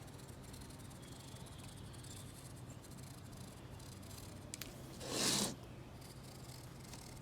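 Excess window screen mesh being trimmed with a knife along the frame's edge: a couple of small clicks, then a short rasp of the mesh about five seconds in, over a faint steady hum.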